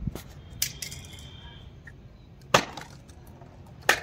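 Small objects, a plastic bottle, a spray can and a lighter, clattering down onto a concrete floor: four sharp knocks spread over a few seconds, the third the loudest.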